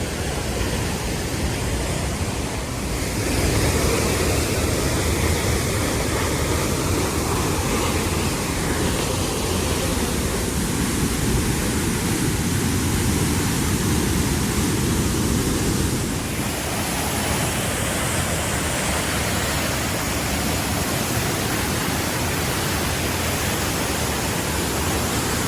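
Steady rushing of a powerful waterfall, growing louder and fuller about three seconds in and thinning slightly around sixteen seconds in.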